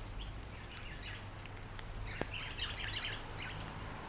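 A small bird chirping in quick high bursts, a brief flurry just after the start and a longer run from about two seconds in, over the steady hiss of light rain. A single sharp tap about two seconds in.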